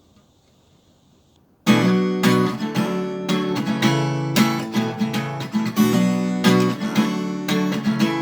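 Near silence, then about a second and a half in an acoustic guitar starts strumming chords: the instrumental intro to a song.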